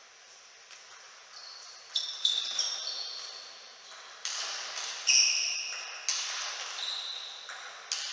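Table tennis rally: the ball cracking off rackets and bouncing on the table, each hit a sharp ringing tock with a short echo from the hall. The hits start about two seconds in and come roughly once a second.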